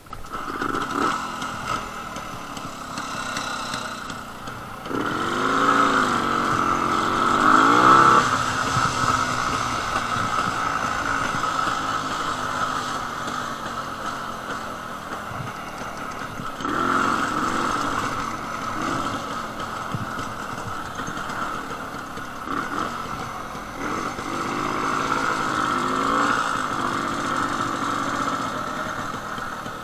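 Jawa 250/353 motorcycle's single-cylinder two-stroke engine running; it comes in suddenly at the start and revs up and down twice, about five seconds in and again near the end.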